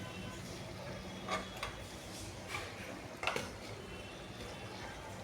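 A few light clicks and taps, four of them spread a second or so apart, over a faint steady hum.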